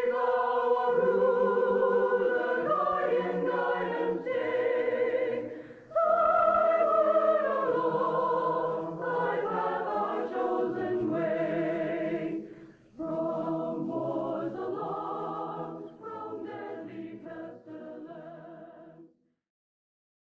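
A choir singing in long phrases with brief breaks, growing quieter toward the end and stopping about a second before the end.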